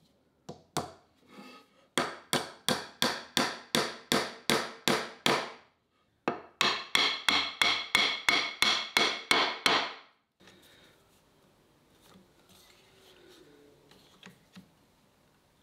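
A hammer knocking glued-up hardwood table-leg joints together: a few single taps, then two quick even runs of about a dozen ringing blows each, roughly three a second. Faint clamp handling follows near the end.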